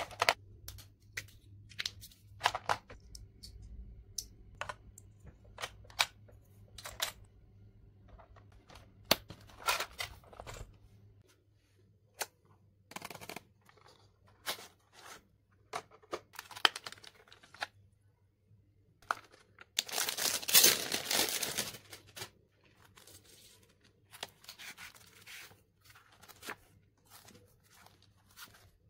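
Small plastic stationery items clicking and tapping as they are set into a hard plastic pencil box, scattered sharp clicks with pauses between. About two-thirds of the way through, plastic packaging crinkles for about two seconds, the loudest sound, followed by lighter taps and handling of paper.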